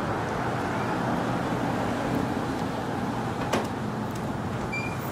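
Steady rumbling noise like road traffic, with one brief knock about three and a half seconds in.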